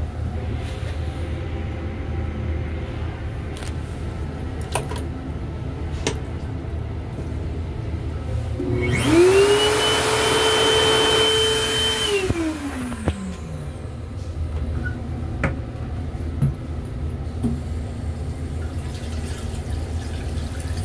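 Electric hand dryer, triggered by a hand held under it, blowing for about three and a half seconds starting about nine seconds in: a rush of air with a motor whine that climbs quickly as it starts, holds steady, then slides down as it spins down. A steady low rumble from the railcar and a few sharp clicks run underneath.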